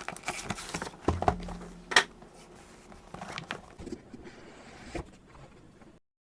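Unboxing and handling noises: packaging rustling, with hard parts clicking and knocking, and one sharp knock about two seconds in. The sound cuts out abruptly just before the end.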